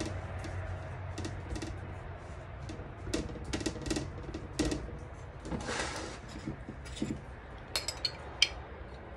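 Hands patting and pressing pizza dough out on a floured metal table, a run of soft taps and thumps, with a brief rustling scrape about six seconds in. Near the end a spoon clinks sharply against a glass jar of pizza sauce.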